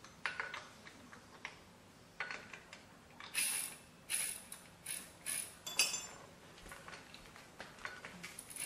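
Irregular metallic clicks and clanks, a dozen or so at uneven spacing, some with a short ring, like metal parts being handled or worked. No motor is running.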